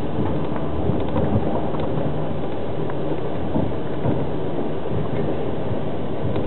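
Russian express train's open-berth sleeping carriage running on the rails, heard from inside: a steady low rumble of wheels and running gear, with a few light ticks and knocks.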